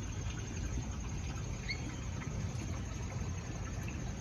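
Steady low background rumble with a faint high whine, and one short high chirp a little under two seconds in.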